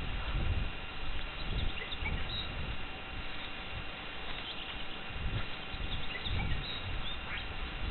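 Irregular low thuds and rustling, like slow footsteps, picked up by a body-worn action camera, with small birds chirping faintly now and then.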